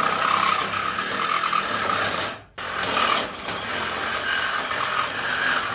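Ryobi 18-volt cordless reciprocating saw running steadily as its blade cuts through thick steel pipe. It stops for a moment about two and a half seconds in, then starts cutting again.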